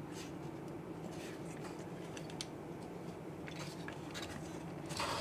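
Faint handling noise of a multimeter's circuit board being held and turned over by hand: light scratches and small clicks, with a louder scrape near the end, over a steady low hum.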